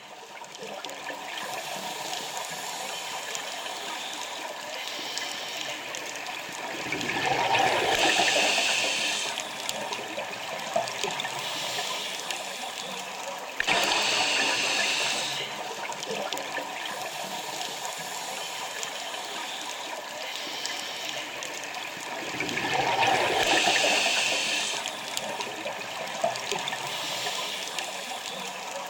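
Scuba regulator breathing heard underwater: a steady hiss of water noise, broken twice by a long bubbling exhalation and by sudden hissing inhalations.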